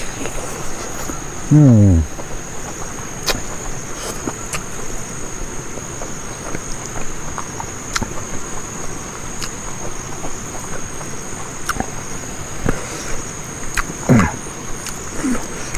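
Crickets or other insects trilling in a steady high drone, with scattered small wet clicks and smacks of eating with the hands. Twice, about two seconds in and again near the end, a short low hum falls in pitch.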